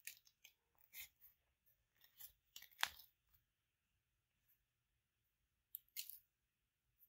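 Hands tearing a piece of naan flatbread apart: a run of short, soft tearing and rustling sounds over the first three seconds, loudest just before the third second, then two more brief ones near the end.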